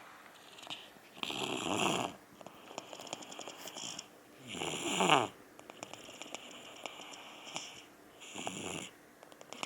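A two-year-old toddler snoring in his sleep: three loud rattling snores about three and a half seconds apart, with quieter breathing between. The middle snore is the loudest and falls in pitch.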